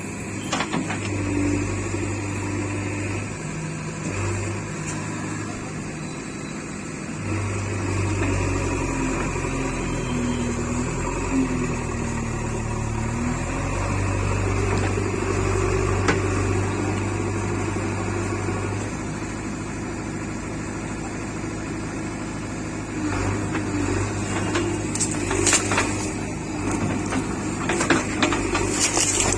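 JCB 3DX backhoe loader's diesel engine running under changing load, its hum swelling and easing several times as it works. Near the end come sharp knocks and crunching.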